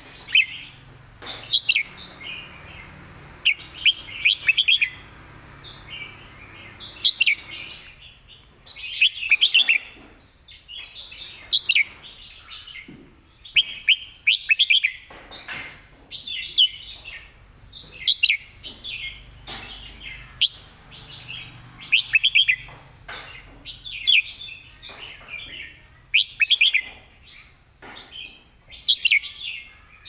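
Red-whiskered bulbul singing: short, bright phrases repeated every second or two.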